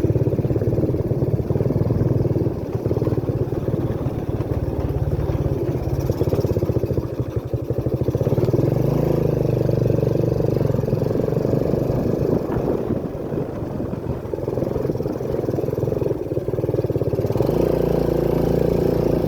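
Motorcycle engine running under load on a rough dirt track, its pitch rising and falling as the throttle is opened and eased, with brief drops in loudness.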